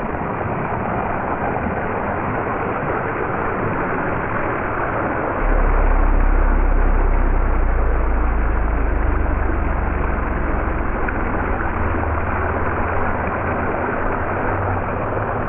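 Hose spraying water in a steady hiss, with a low steady hum coming in about five seconds in.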